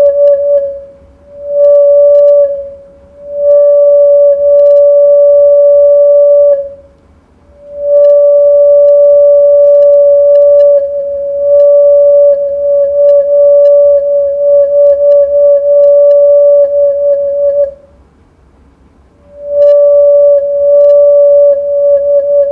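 Homemade electronic siren sounding a steady mid-pitched tone that at times breaks into a fast warble of about five pulses a second. It fades out and comes back four times, with faint clicks scattered through it.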